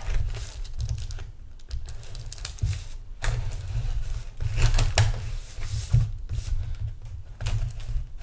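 A knife blade sawing and slitting through packing tape and a plastic-wrapped shipping package, in irregular scratchy strokes with crinkling of the plastic, over a steady low hum.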